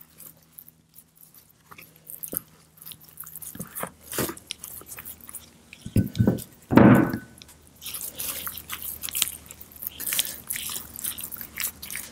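A gloved hand and a bare hand rubbing an oily spice marinade into sliced raw pork loin in a plastic container: wet squelching and crackling rubs, with a few louder thumps about six to seven seconds in.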